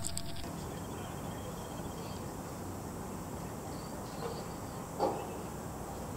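Outdoor ambience: a steady background hiss with faint insect chirring, and a short thump about five seconds in.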